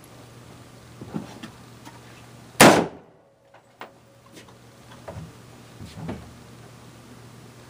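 A single loud shot from a DPMS AR-15 rifle firing a .223 round, about two and a half seconds in, dying away quickly. Several much fainter knocks come before and after it.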